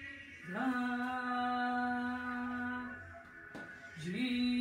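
A voice humming two long held notes, each sliding up into pitch at its start, with a short pause between them.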